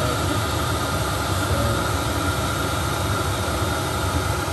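Chinese diesel air heater running steadily on a test run: its blower fan gives a constant whir with a steady high hum, moving air through an outlet with no ductwork fitted, while the heater pumps out a lot of heat.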